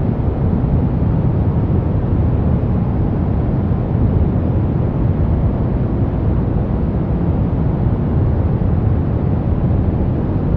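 Soft brown noise: a steady, even hiss weighted to the low end, a deep rumble-like hush with little treble.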